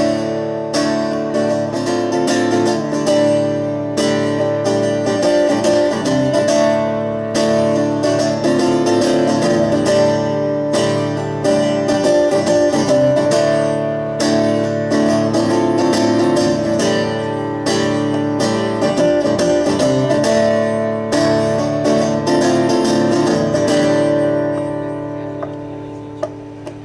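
Guitar strummed in a steady rhythm, playing the instrumental break of a song. Near the end a chord is left ringing and fades before the strumming starts again.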